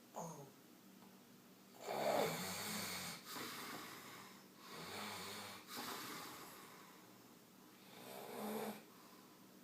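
A man snoring loudly in his sleep: a run of rasping snoring breaths with a low buzz, the loudest about two seconds in and the last near the end.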